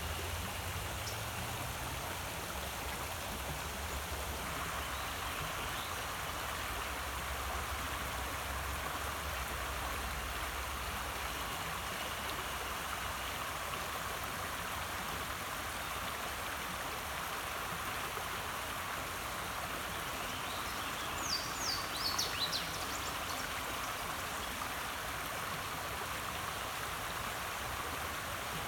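Creek water running, a steady rushing hiss. A low rumble underneath fades out about ten seconds in, and a few short, high, falling chirps come just past twenty seconds in.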